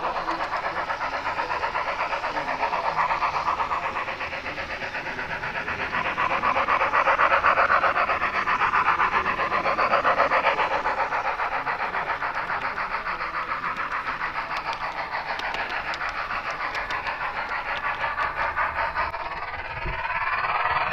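HO-scale model train running along the layout's track: a steady, fast, even rhythm that swells for a few seconds in the middle and then eases back.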